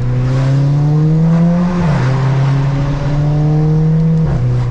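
VW Golf GTI with a 3-inch straight-pipe exhaust accelerating: the engine note climbs, drops with a quick DSG upshift about two seconds in, climbs again, and drops with a second upshift near the end.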